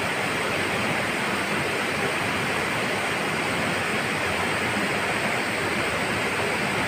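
Fast, shallow river water rushing and churning in whitewater over rocks, a steady even rush.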